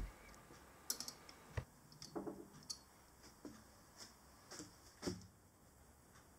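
Faint, sporadic metallic clicks and knocks, about eight over the first five seconds, as a lathe's quick-change toolpost is handled and repositioned while the lathe is stopped.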